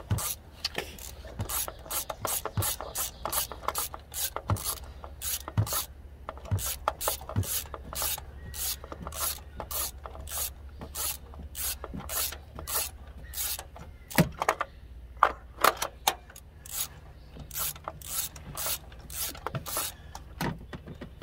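Hand ratchet with a spark plug socket on an extension clicking in an even run, about two or three clicks a second, as a spark plug is unscrewed from the cylinder head of a 2.4 L Tigershark engine.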